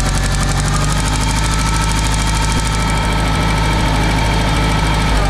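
International Harvester C123 four-cylinder engine of a Farmall 140 running steadily, with its valve cover off so the rocker arms and valve train are exposed.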